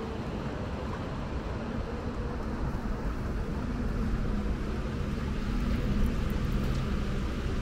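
Rainy city street ambience: a steady low rumble of traffic under a hiss of rain and wet pavement, with an engine hum coming in about two seconds in and growing a little louder.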